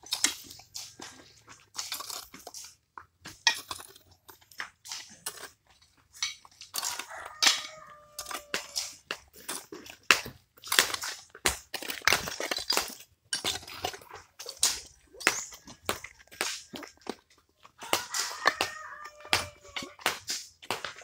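Hoes chopping and scraping into dry, stony earth while digging a foundation trench: an irregular run of crunching strikes.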